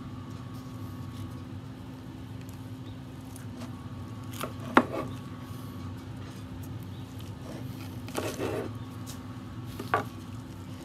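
Large knife cutting through smoked beef short ribs and knocking on a wooden cutting board: a sharp knock about halfway through, a short scrape-like patch later, and another knock near the end, over a steady low hum.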